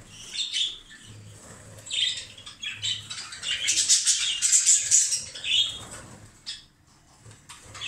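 Caged budgerigars chirping and chattering in bursts, loudest from about three and a half to five and a half seconds in, then dying down near the end.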